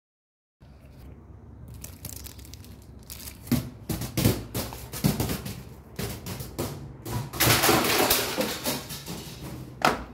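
Foil-wrapped ring tumbling down stairs: a run of irregular knocks and thuds with crinkling foil, loudest and densest near the end, closing on one sharp knock.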